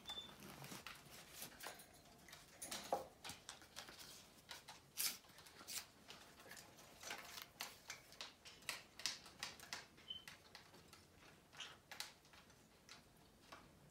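Faint, irregular clicking and tapping from green-cheeked conures moving about their wire cage and playing with hanging toys. Two brief high peeps come through, one at the start and one about ten seconds in.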